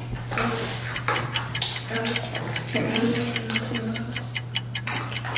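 A ticking-clock sound effect: rapid, even ticks, about five a second, with faint voices under it.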